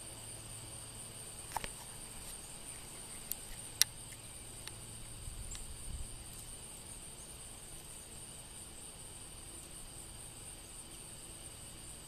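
Steady high-pitched trilling of insects, with a few sharp clicks between about one and a half and four seconds in.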